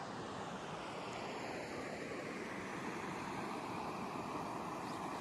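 Steady rushing hiss of a river flowing over rocks.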